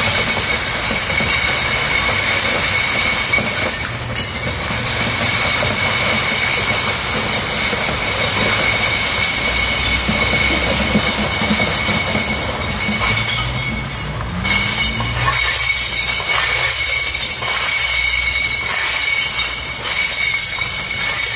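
Heavy semi-trailer truck rolling slowly over a spill of empty glass wine bottles, its tyres crunching and crushing the glass while its diesel engine runs. A steady high tone sounds throughout. The engine sound drops away after about fifteen seconds as the truck moves off.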